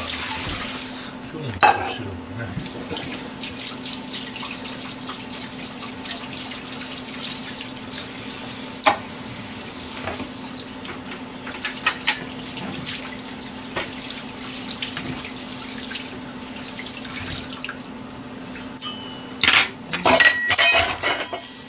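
Kitchen tap running into a stainless sink while dishes are rinsed, over a steady low hum, with a few scattered clinks. Near the end comes a burst of clattering as a plastic cutting board and dishes are handled at the sink.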